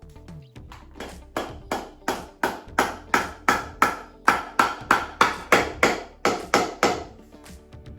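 A fast, even series of hammer blows, about three a second, knocking workbench parts together during assembly. The blows are softer for the first second and die away near the end.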